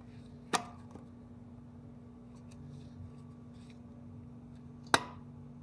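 Two sharp metal clicks about four seconds apart, the second louder, from needle-nose pliers with ground-down tips working at a large snap ring in a C5 Corvette torque tube housing, with a few faint ticks between. A steady low hum lies underneath.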